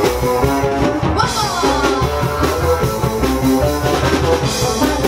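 A live rock band playing an instrumental stretch between sung lines: drum kit keeping a steady beat under guitar, with a note sliding down about a second in.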